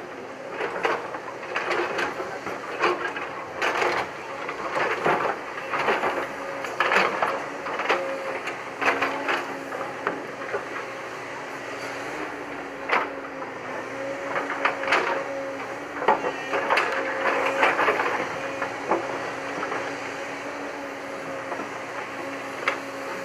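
JCB tracked excavator running as it digs and swings, with a steady pitched hum that becomes clear about halfway through. Frequent sharp clinks and knocks of rock and stone sound over it, thickest in the first half.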